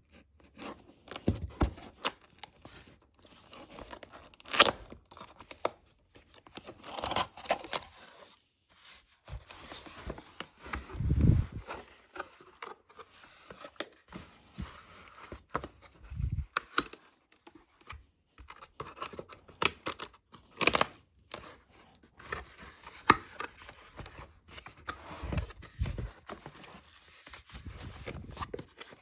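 Laptop packaging being unpacked by hand: irregular tearing and crinkling of wrapping, scrapes and clicks, with a few dull thumps.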